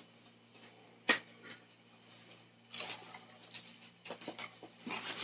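Faint scattered clicks and light rustling of small objects being handled, with one sharper click about a second in.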